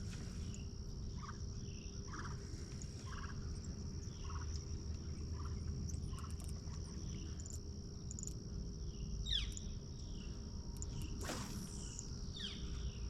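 Crickets and other insects trilling steadily, with a short chirp repeating about once a second and two quick downward-sweeping calls near the end, over a low rumble.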